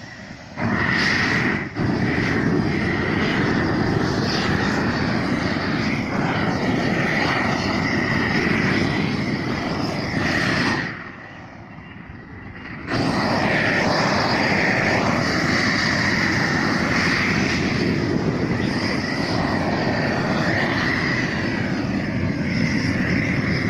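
A loud, steady machine-like roar with a faint wavering whistle in it, cutting out for about two seconds near the middle and then starting again.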